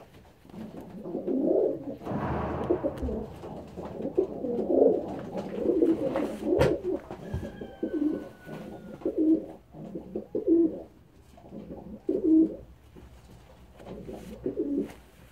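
Racing pigeon cooing, a series of low throaty coos about once a second, with a few sharp handling clicks among them.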